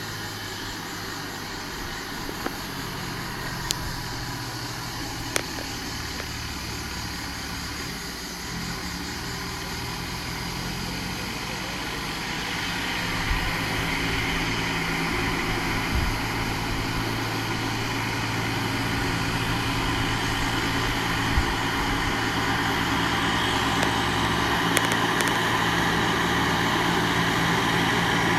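Case JX80 tractor's diesel engine running steadily at an even pitch, growing louder about halfway through as it comes closer.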